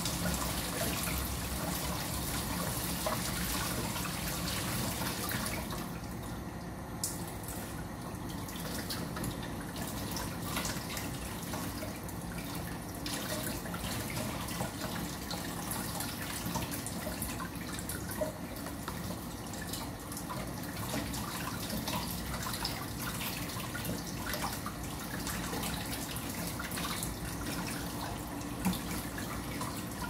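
Kitchen tap running steadily, the stream splashing over hands and eggs being scrubbed with a sponge and dripping into a basin of eggs in the sink. A few small knocks, the sharpest near the end.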